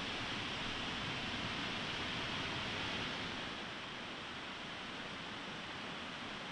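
Steady rushing of the Upper Kings River, an even hiss of flowing water that dips slightly in level about three and a half seconds in.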